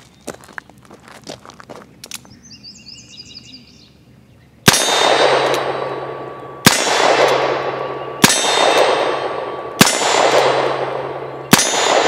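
Five shots from a Pietta-built EMF Pony Express single-action revolver firing .38 Special smokeless factory loads, fired one at a time about one and a half to two seconds apart. Each shot is followed by a steel target ringing, the sign of a hit. The shots begin a little before halfway, after a few light clicks.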